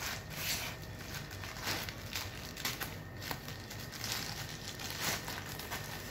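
A white plastic courier mailer bag being crinkled and torn open by hand, with irregular rustling and ripping of the plastic.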